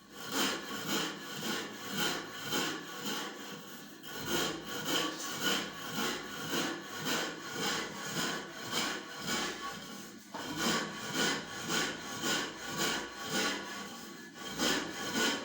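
Stone hand mill grinding millet into flour: a hand stone rubbed back and forth over a grinding stone in a steady scraping rhythm, about two strokes a second, with brief pauses around 4, 10 and 14 seconds.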